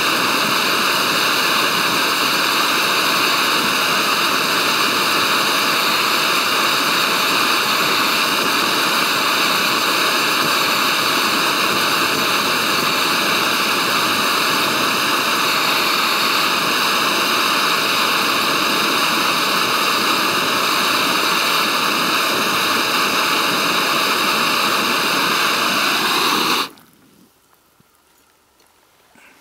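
MSR PocketRocket canister gas stove burning with a steady loud hissing rush under a titanium pot, its flame set below full output. Near the end the hiss drops sharply and stops as the valve is turned off.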